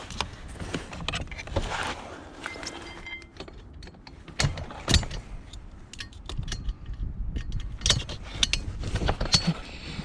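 Metal clicks, clanks and rattles as the metal frame and motor of an electric recliner chair are worked apart by hand. The knocks are sharp and irregular, with the loudest ones about halfway through and again near the end, over a steady low rumble.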